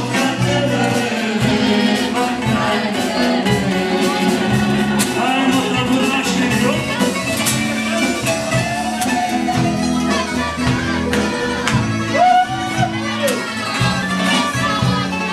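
Tamburica band playing a folk tune live: plucked strings over a steady, pulsing bass line, with voices singing.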